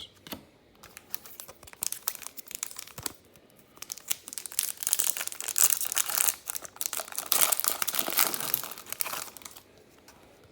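Plastic wrapper of a hockey card pack being crinkled and torn open: a few light scattered crackles at first, then dense crinkling from about four seconds in until near the end.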